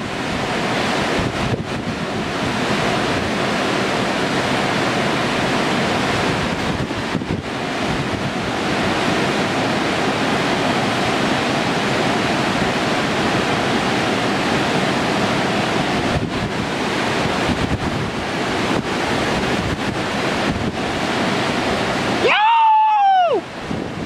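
Steady rushing of big-water river rapids around a standing wave, with wind buffeting the microphone. Near the end the rushing cuts out and a single high whistle-like tone rises and then falls for about a second.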